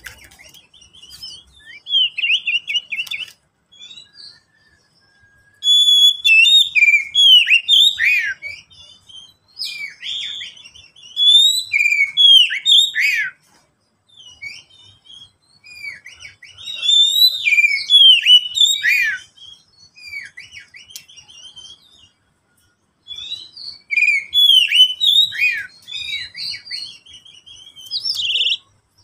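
Male oriental magpie-robin (kacer) singing loud, varied song of clear whistles and fast sweeping notes. It sings in five bouts of a few seconds each, with brief pauses between them.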